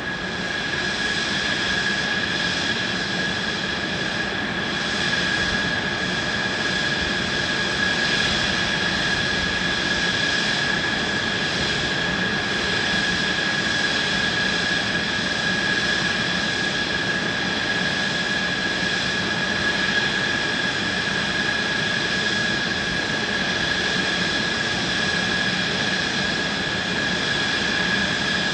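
Mitsubishi F-2 fighter's F110 turbofan engine running steadily on the ground. It makes a high, steady whine over a broad rush of jet noise.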